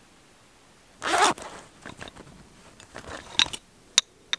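The zipper on a canvas pouch is pulled open in one quick stroke about a second in. A few light clicks and clinks follow as gear is taken out of it.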